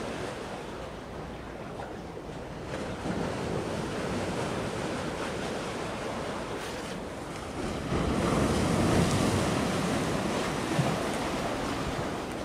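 Steady rushing wind and sea noise, with wind buffeting the microphone. It swells louder about eight seconds in for two or three seconds, then settles again.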